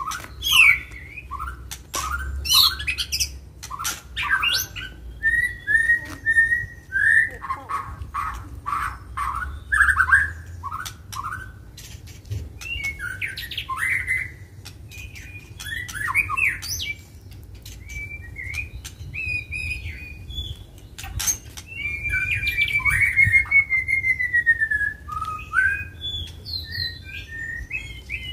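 White-rumped shamas (murai batu) singing in an aggressive, fighting mood: fast, varied whistled phrases and chattering notes mixed with sharp clicks, and a long, falling whistled trill late on.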